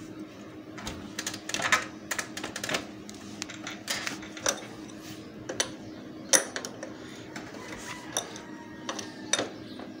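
Irregular metal clicks and taps of an adjustable wrench working on a motorcycle's rear axle nut as it is loosened, over a faint steady hum.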